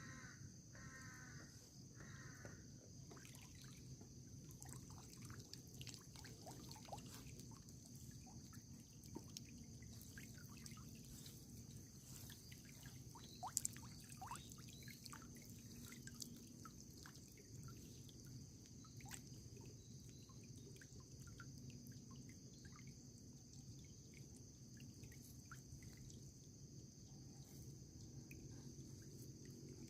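Faint water dripping and trickling in scattered small drops, over a steady high-pitched insect chorus; three short chirps sound near the start.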